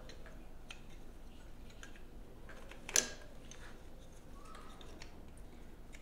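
Light plastic clicks and rustle from an engine wiring harness being handled and its connectors fitted, with one sharper click about three seconds in.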